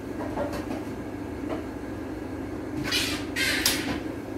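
A steady low hum with a few faint knocks, then two short rustling scrapes about three seconds in as spice containers are picked up from a kitchen counter.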